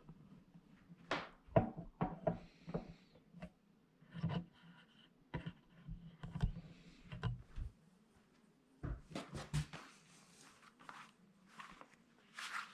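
Welding machine and its packaging being handled during unboxing: scattered knocks, rubs and rustles, with a low hum under the first ten seconds or so.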